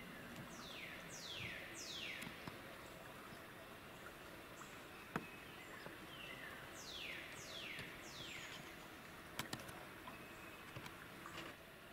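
A songbird singing: steep falling whistles, three in a row, then after a pause another three. A few sharp clicks come in between, the loudest about five seconds in, with a quick cluster near the end.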